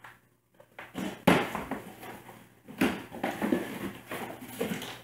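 A cardboard shipping box being opened by hand: packing tape ripping and the cardboard flaps scraping and folding back. There are sharp, loud rips about a second in and again near three seconds, with rustling handling in between.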